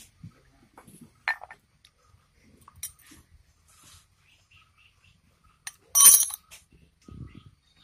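Steel differential gears and a thrust washer clinking and knocking against each other as they are handled. A sharp ringing metal clink about six seconds in is the loudest sound, with a smaller clink about a second in.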